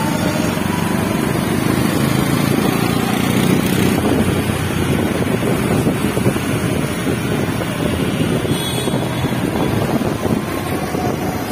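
Wind rushing over the microphone of a moving motorbike, over its engine and the surrounding city traffic, with a faint thin whine near the start.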